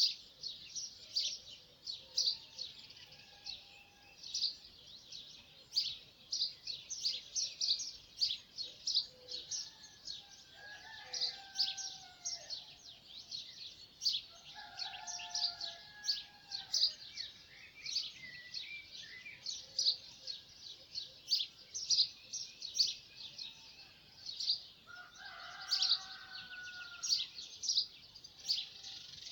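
A chorus of small birds chirping rapidly and without pause, with a few longer, lower calls from another bird now and then.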